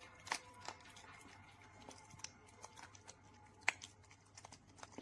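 Faint, scattered small clicks and light rustling over a low steady hum, with one sharper click near the end.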